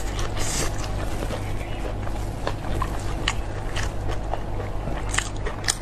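Close-up mouth sounds of chewing a mouthful of grilled sausage: wet, scattered clicks and smacks over a steady low hum.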